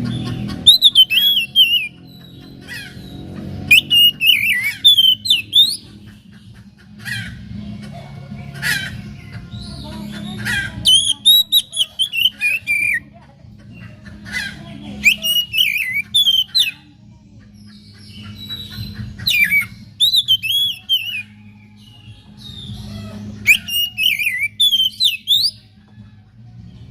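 Oriental magpie-robin singing: loud whistled phrases that slide up and down in pitch, in bursts of a second or two with short pauses, over a steady low hum.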